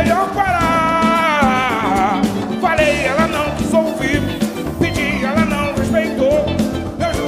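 Live band music: a wavering lead melody that glides up and down over a steady, dense accompaniment.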